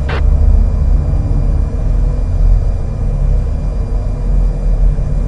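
Steady low rumble with no speech, between police radio transmissions, with a short burst of noise right at the start.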